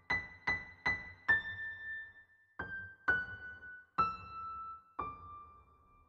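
Background piano music: a slow melody of single struck notes that ring and fade, one high note played three times, then a line stepping slowly downward.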